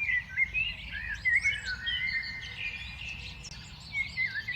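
A mixed flock of songbirds chirping and calling over one another in quick, overlapping notes. About a second and a half in, one long even whistled note runs for about a second.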